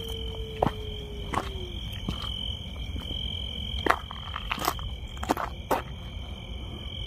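Footsteps crunching on a dry dirt path through scrub, over a steady high chirring of crickets. A long drawn-out wailing cry, slowly falling in pitch, trails off about two seconds in.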